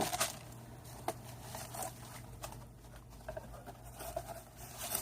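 Faint scattered rustles and small clicks of a boxed figure's packaging being handled, with one sharper click about a second in.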